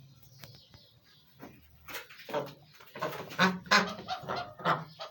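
White domestic ducks quacking: after a quiet start, a run of short, harsh quacks follows in quick succession from about two seconds in.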